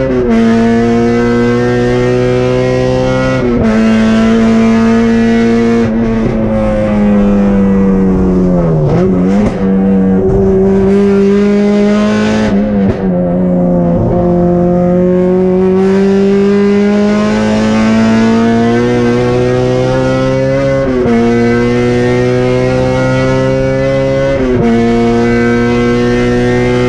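Honda Civic race car's K24 four-cylinder engine at full throttle, heard from inside the cabin. The pitch climbs through each gear and drops abruptly at the upshifts, about three and a half seconds in and twice near the end. In the middle it falls away steeply twice as the car slows for corners, then pulls back up in a long, slowly rising stretch.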